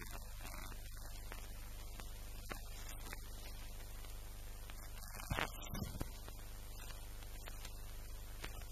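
A steady low hum under a faint hiss, with a short cluster of two or three knocks a little past the middle.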